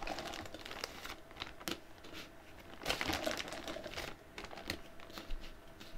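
Plastic miniature figures on round bases clicking against each other and tapping down on a table as they are taken out of a crinkly plastic bag: a string of light, irregular clicks with some bag rustle.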